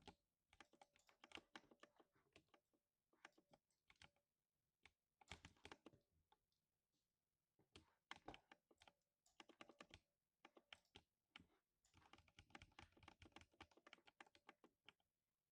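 Typing on a lubed 60% mechanical keyboard: faint keystrokes in quick runs, broken by a couple of brief pauses.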